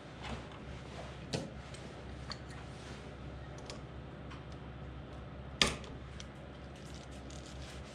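Small metallic clicks and taps of pliers working a copper wire onto a light switch's terminal, with one sharper click about five and a half seconds in.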